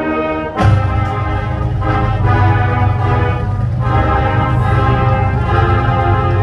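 Marching band playing, brass instruments holding sustained chords. About half a second in, a loud, steady low bass comes in under them and the full band carries on.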